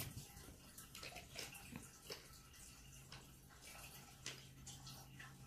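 Faint clicks and taps of plastic soap bottles being handled, over a faint steady hum.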